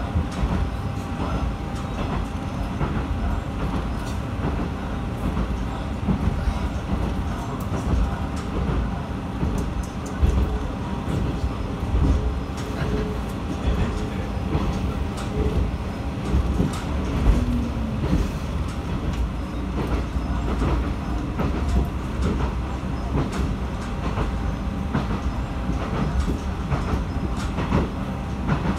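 Matsuura Railway MR-600 diesel railcar running along the line, heard inside the cabin: a steady engine and running rumble, with the wheels clicking over rail joints. A faint steady whine drops out a little past halfway.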